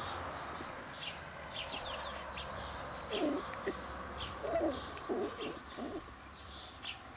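Small birds chirping in the background throughout, and about halfway through, four or five short, low, wavering hoot-like animal calls close by, the loudest sounds here.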